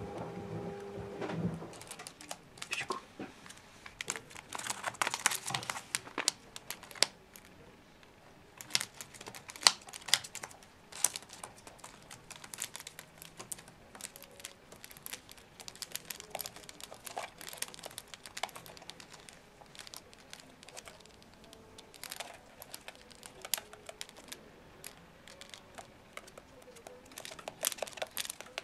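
A cockatiel nibbling and rustling at something: irregular crinkling with many small, sharp clicks of its beak.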